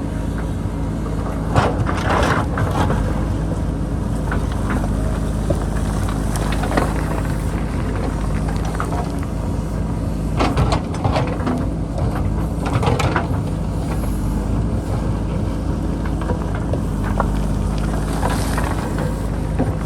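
JCB backhoe loader's diesel engine running steadily under load, with scattered clatters and knocks of rock in about five bunches as the machine cuts into a stony hillside.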